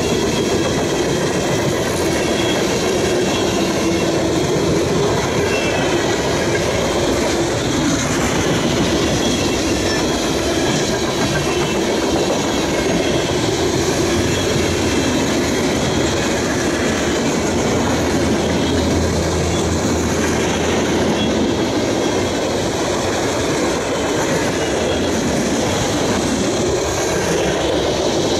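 Freight train tank cars rolling past: steel wheels running on the rails in a steady rumble.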